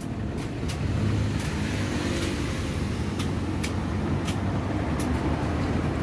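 Sharp ES-X905 9 kg top-load washing machine on its spin cycle: a steady motor and drum hum with a few scattered light ticks. It is spinning properly, the E2 error cured by replacing the water level sensor.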